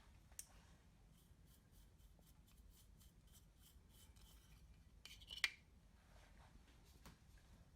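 Faint scraping and light ticks of makeup being handled and broken up, with a short, louder crackly clatter about five seconds in.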